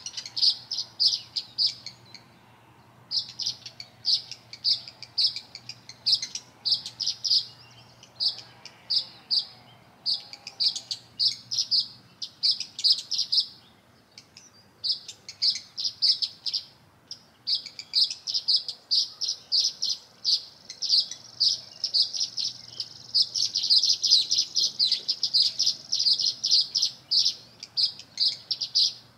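Small songbirds chirping: a long run of short, high chirps several a second, breaking off briefly about two seconds in and again halfway through, and growing denser and louder a little past the three-quarter mark.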